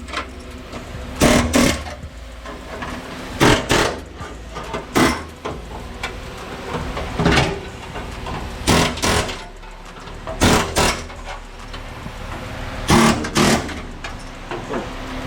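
Short bursts of a power tool working on a car's radiator support during its removal, often in pairs, a second or two apart.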